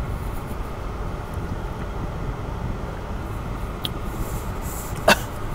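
Steady low rumble inside a car cabin, with a sharp click about five seconds in and a fainter one a second before it.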